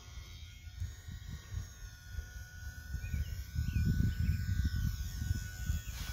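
Wind buffeting the microphone in uneven gusts, strongest a little past halfway through, with faint high-pitched tones above it.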